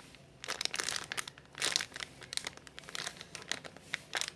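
Clear plastic packaging crinkling as it is handled, in a string of short, irregular rustles.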